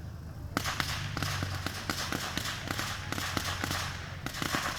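Fireworks crackling: a dense, irregular run of small pops and snaps that starts suddenly about half a second in and keeps going.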